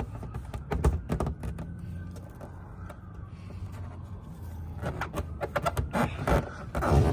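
Scattered clicks and light knocks from an underglow LED strip being handled and pressed onto the underside of a car's bumper, with a quieter stretch in the middle and a denser run of clicks near the end.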